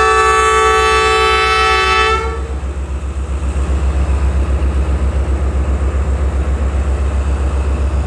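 A diesel locomotive's air horn sounds a steady multi-note chord that cuts off about two seconds in. Under it and afterwards the locomotive's diesel engine idles with a low, evenly pulsing throb.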